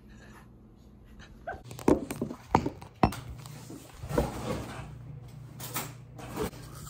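A string of short, dog-like whimpers and yelps, several in quick succession from about two seconds in.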